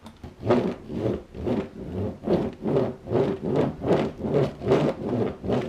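Toy monster truck pushed rapidly back and forth, its paint-wet rubber tyres scraping and rubbing over paper in about three strokes a second.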